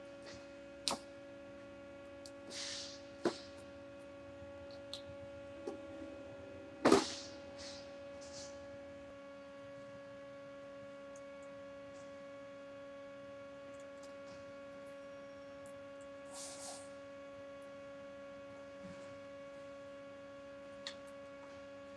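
A steady, low hum, with one lower tone dropping out about 9 seconds in, broken by a few short hisses and clicks; the sharpest hiss comes about 7 seconds in.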